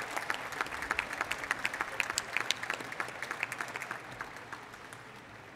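Applause from a large crowd of graduates, many hands clapping together, dying away over the last second or two.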